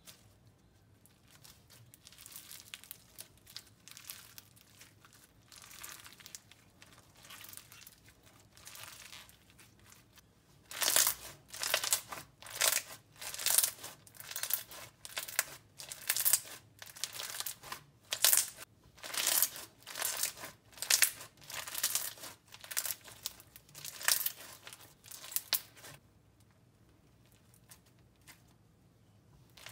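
Crunchy slime being squeezed and pressed by hand, crackling and crunching. Soft crackles at first, then a long run of loud crunches about one or two a second, which stop a few seconds before the end.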